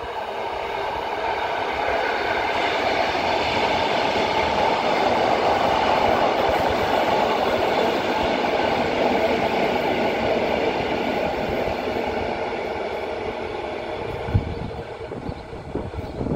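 A pair of coupled EN57ALc electric multiple units passing by. The rush of wheels on rail and running gear swells as the train draws level and fades as it moves away. A brief low thump comes near the end.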